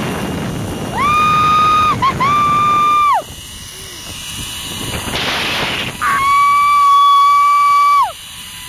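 Zip line trolley's pulleys whining along the cable: a steady high whine that swoops up as it starts and drops away as it stops, heard twice for about two seconds each. Rushing air noise lies underneath.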